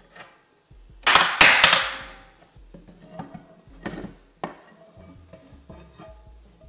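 A 1-inch steel ball bearing dropped into a granite-coated aluminium frying pan: it strikes with a loud metallic clang about a second in and bounces several times in quick succession, ringing as it settles. Lighter knocks and clinks follow as the pan and ruler are handled.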